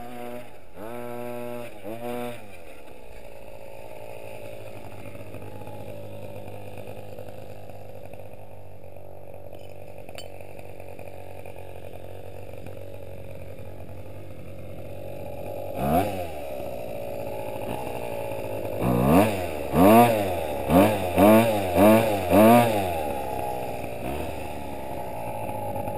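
A Himoto 1/5-scale 5SC RC truck's 26cc two-stroke petrol engine, revved a few times near the start, then running steadily at a low throttle. About sixteen seconds in there is a sharp knock, then the throttle is blipped five times in quick succession before the engine settles back to idle.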